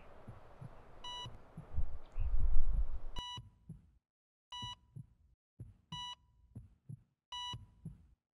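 Heart-monitor beeping: a sharp electronic beep about every second and a half, each with a low heartbeat thump beneath it. Before the beeping begins, a low rumble swells and peaks just before the first beep.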